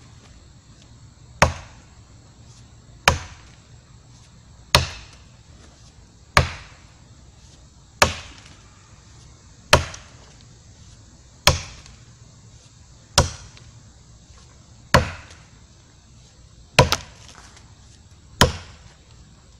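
A CRKT Woods Chogan tomahawk head on a curved cane-length handle chopping into a small standing dead, well-cured maple trunk: about eleven sharp strikes in an even rhythm, one every second and a half or so, each dying away quickly.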